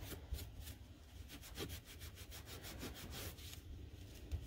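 Cloth towel rubbed quickly back and forth over a paper card, buffing off sticky glue, in a fast steady run of strokes that eases off near the end.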